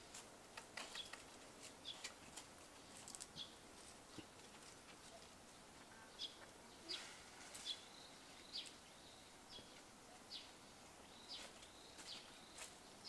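Faint, scattered short bird chirps, some dropping in pitch, every second or so over a quiet outdoor hiss, with a few soft clicks.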